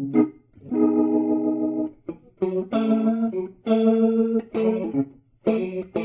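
Electric guitar played through a 1966 Leslie 16 rotating speaker cabinet (the same unit as a Fender Vibratone), driven by its own added 20-watt 6V6 tube amp with a tweeter for extra shimmer. A run of strummed chords, each held up to about a second and then stopped, with brief silences between.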